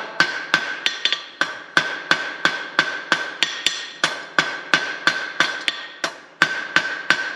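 Two-pound rounding hammer striking hot 1/4-inch steel rod on an anvil to draw it out. Steady blows come about two and a half a second, each with a clear ringing note, and there are a few short pauses.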